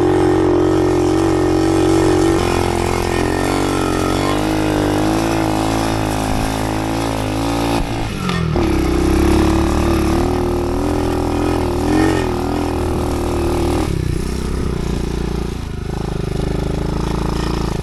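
Small off-road vehicle engine running continuously, its pitch shifting several times as the throttle changes, with a sharp dip and change about halfway through.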